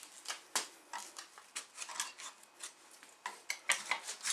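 Hacksaw blade in a handheld blade holder sawing along the inside of a white PVC pipe glued into an ABS fitting, cutting through the pipe wall. Short, irregular rasping strokes that grow louder and quicker near the end.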